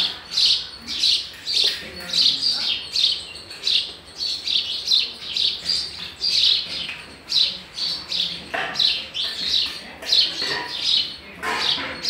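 House sparrow chirping: short, repeated chirps, about two or three a second, kept up without a break.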